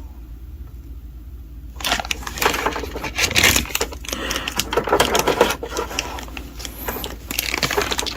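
Dense, irregular crinkling and clicking of plastic being handled, starting about two seconds in and going on to the end.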